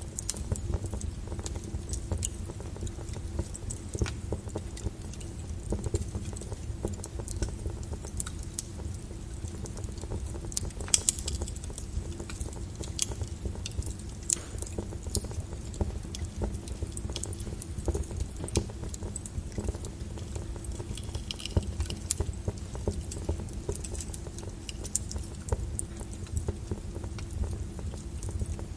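A small wood fire crackling in a fireplace: frequent irregular sharp pops and snaps over a steady low rumble.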